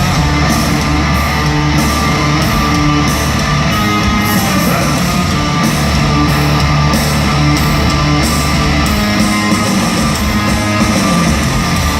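A hard rock band playing live and loud: heavy distorted electric guitars over bass and drums, with the cymbals and drums keeping a steady beat.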